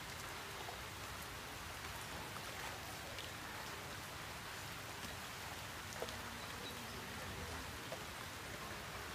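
A steady, even hiss of outdoor noise, with a single faint tap about six seconds in.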